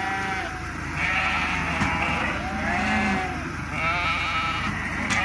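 A flock of Sardi sheep bleating again and again, several calls overlapping, about one a second.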